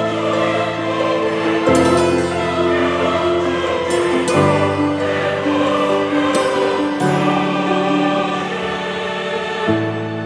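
Background music with held chords that change about every two and a half seconds.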